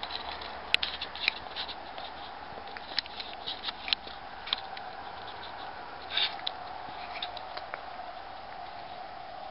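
Scattered light clicks and short rustles, as of tools or small parts being handled, over a steady hum.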